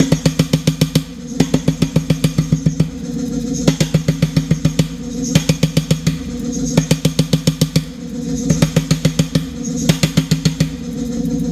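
Power hammer striking a red-hot metal bar held in tongs: short runs of rapid blows, about nine a second, each run lasting a second or so, with a steady hum between runs. The blows stop near the end, leaving only the hum.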